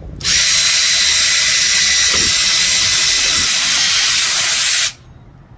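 Cordless drill with a twist bit boring a hole through a PVC pipe: a steady, high, hissing whir for about four and a half seconds that stops abruptly.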